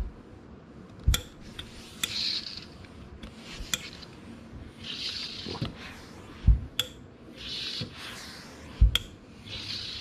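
Gravity-feed steam iron pressing fusible interfacing onto fabric: three short hisses of steam, with several dull knocks as the iron is set down and pressed on the padded pressing table.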